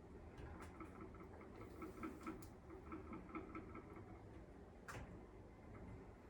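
Faint, quick metal ticks and clicks as a screw is tightened against a stack of washers to draw a broken pin out of a cast door hinge; the washer is being crushed under the load. One sharper click comes about five seconds in.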